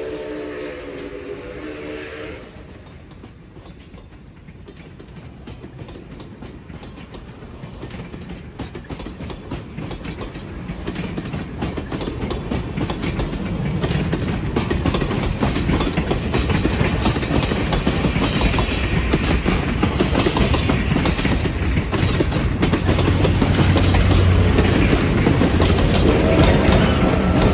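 A steam locomotive's chime whistle trails off about two seconds in. Then passenger cars roll past with wheels clicking over rail joints, growing steadily louder. In the last few seconds a low diesel locomotive engine drone joins in as the rear locomotive passes.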